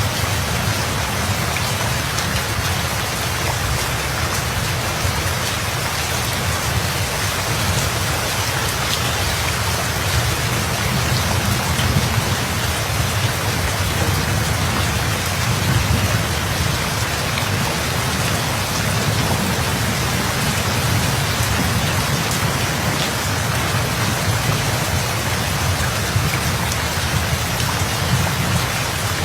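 Steady rain pattering, with a low thunder rumble that swells and rolls around the middle.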